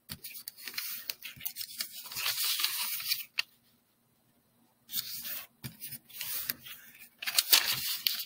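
A sheet of origami paper rustling and crinkling as hands fold it and run creases down, with a pause of about a second and a half midway.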